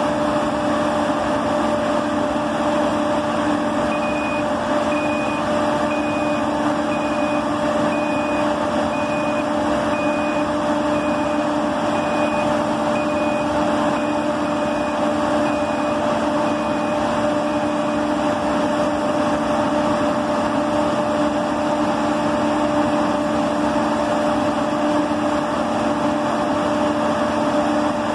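Tracked drilling rig running with a steady machine hum carrying a few steady tones. From about four seconds in until about eighteen seconds, a high warning beeper sounds roughly once a second.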